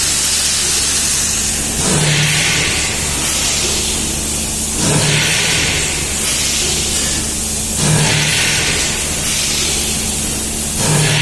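Erkur ER130 thermoforming machine running over a steady low hum, cycling about every three seconds, each cycle a short low thump followed by a hiss.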